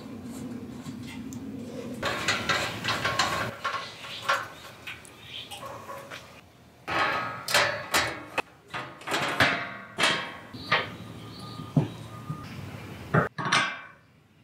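Steel wind-guard panels of a camping burner table being fitted and slotted into place: a run of metal clanks and knocks, some with a short ring, with a stretch of sliding and rubbing of metal early on.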